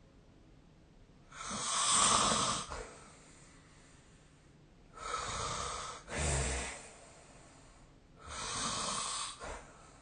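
A sleeping person snoring: three noisy snoring breaths about three and a half seconds apart, the middle one followed at once by a short, deeper snore.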